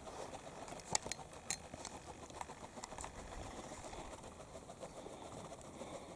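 Faint pigeons cooing. A few sharp clicks come in the first three seconds.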